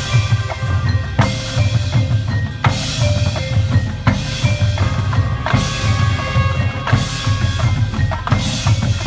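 High school marching band playing a drum-heavy passage of its field show: drumline and mallet percussion over a steady low rumble, with loud crashing accents about every second and a half.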